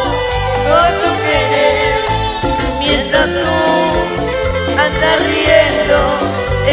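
Live Peruvian cumbia band playing an instrumental passage through the PA: a steady, rhythmic bass beat under a melodic lead line with pitch bends.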